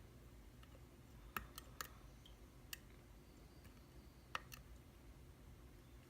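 Faint, scattered metallic clicks, about six in all, mostly in two small clusters, of a lock pick working the pins of a Mul-T-Lock Classic dimple cylinder.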